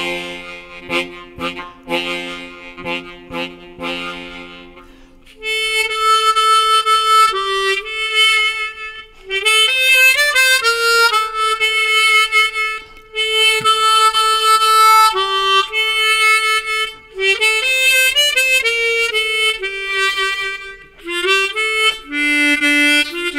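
Harmonica playing a slow Cambodian lullaby: short repeated chords for the first few seconds, then a melody of long held single notes.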